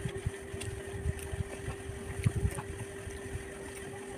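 Close-miked chewing and mouth sounds of a person eating: irregular soft low thuds with small clicks. A steady hum runs underneath.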